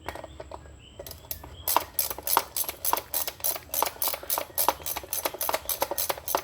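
Socket ratchet clicking as the new plastic PCV valve is screwed in. A few scattered clicks at first, then from about two seconds in a quick, even run of about four to five clicks a second.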